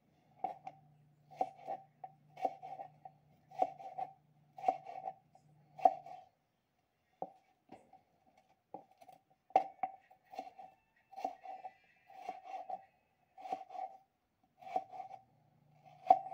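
Knife chopping raw peeled potato into fry strips on a plastic cutting board: a run of sharp knocks, about one or two a second, with a short pause a little over a third of the way through.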